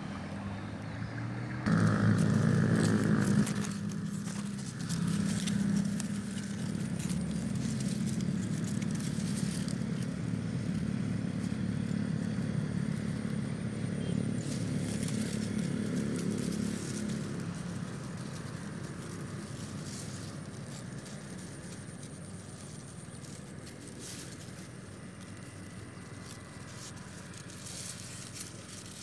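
A small engine running, loudest about two seconds in and then slowly fading away, with scattered scraping and crackling over it.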